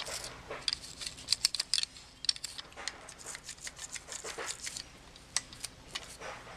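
Toothbrush scrubbing the little cracks of a plastic bag-in-box syrup connector: quick, irregular scratchy strokes and small clicks.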